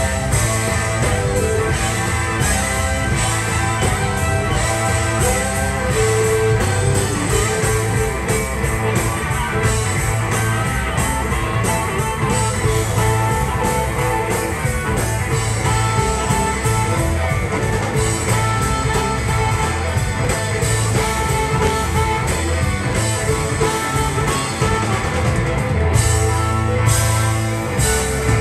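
Live blues-rock band playing at full volume: electric guitar, bowed fiddle, electric bass, drum kit and harmonica together, with a steady beat.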